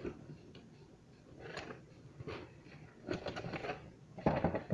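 Cardboard box and packaging being handled, rustling and scraping in several short bursts, the loudest near the end.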